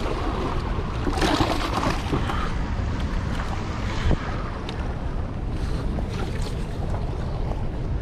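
Steady rush of water pouring through the open spillway gates, mixed with wind buffeting the microphone, with a few short handling clicks.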